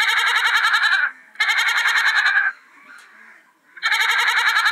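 Domestic goat bleating: three long, quavering bleats of about a second each, with short pauses between them.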